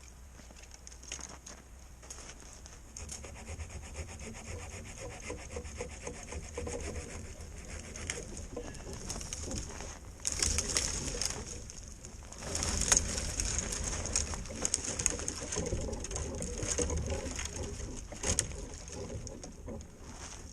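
Wood of a fallen tree being cut by hand for firewood: continuous rough scraping strokes through the wood, loudest in stretches about ten seconds in and from about thirteen seconds in.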